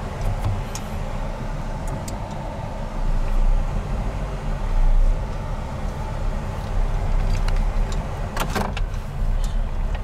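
Car heard from inside the cabin on a rough forest track: a steady low engine and road rumble, with a short cluster of knocks about eight and a half seconds in.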